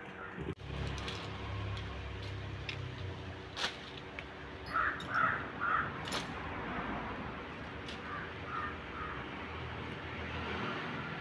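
A crow cawing three times in quick succession about halfway through, with a couple of fainter caws a few seconds later, over a steady low hum.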